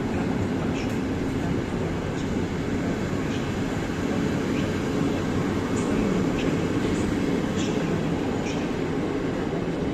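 A train running at the station: a steady low noise with short, high-pitched squeaks and ticks scattered through it.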